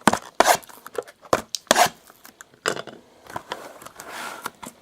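Trading card packs being torn open and cards handled: an irregular run of sharp crinkles, rips and taps.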